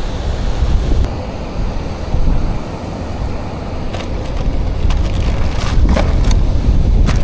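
Wind buffeting the microphone: a steady low rumble, with a few faint clicks and knocks in the second half.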